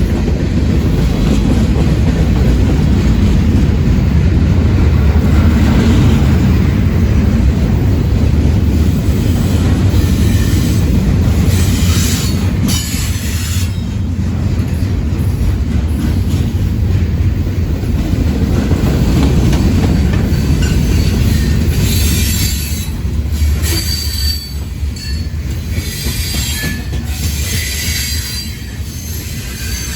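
A train rolling past on the rails, a heavy steady rumble with wheel clatter. Bursts of high-pitched wheel squeal come in about halfway through, and the rumble eases off near the end.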